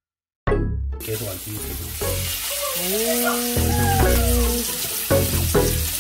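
Flour-dredged mackerel and black sea bream pieces frying in a pan of hot oil: a steady sizzle and crackle that comes in about half a second in.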